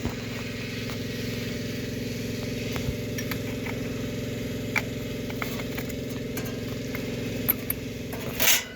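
A steady machine hum, with scattered light clicks and glass clinks of vacuum tubes being handled. Near the end comes a loud rustling burst, and the hum drops away.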